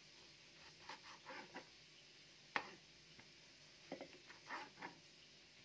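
Knife cutting salad vegetables on a board: a few scattered cuts and taps, with one sharp knock about two and a half seconds in.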